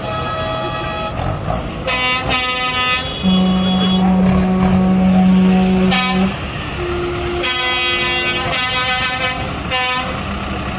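Several tractor horns sounding one after another and overlapping at different pitches: short blasts about two seconds in, then a deep horn held for about three seconds as the loudest sound, then more blasts. Engines run underneath.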